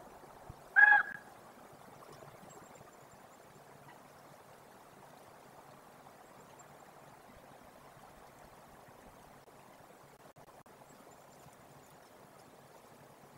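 A single short, honking call from a common raven about a second in, over a faint steady hiss of background noise.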